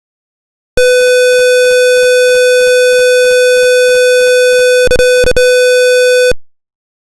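Electronic alarm buzzer sounding one loud, steady tone for about five and a half seconds, then stopping abruptly. Under the tone there is a faint regular ticking, with two sharper clicks shortly before it stops.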